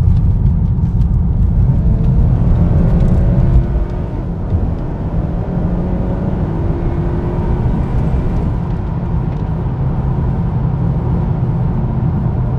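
Honda Accord 2.0T's turbocharged 2.0-litre four-cylinder engine accelerating hard under boost, heard from inside the cabin, its note rising as the revs climb. The level drops briefly about three and a half seconds in at a gear change of the 10-speed automatic, the note climbs again, then eases off near the end as the throttle is lifted, over steady road rumble.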